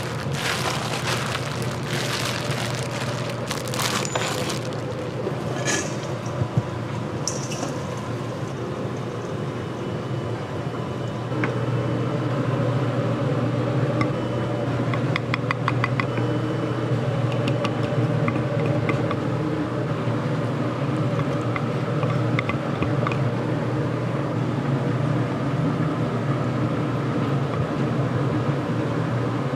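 Plastic wrap crackling as gloved hands peel it off a block of raw ground beef during the first few seconds, over a steady low hum of kitchen equipment. A few light clicks come midway.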